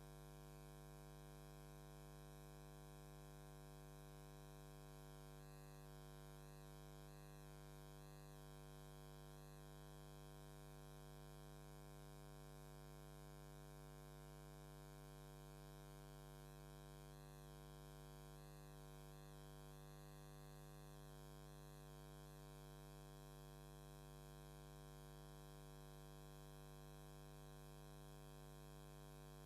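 Near silence with a steady low electrical hum, unchanging throughout, and faint wavering high sounds twice in the middle.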